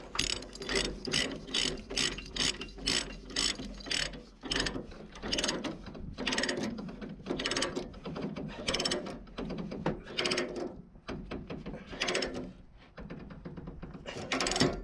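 Ratchet chain load binder being cranked to tighten a chain tie-down: the pawl clicks in quick strokes, about three a second, with short pauses as the handle is reset, and a louder clack near the end.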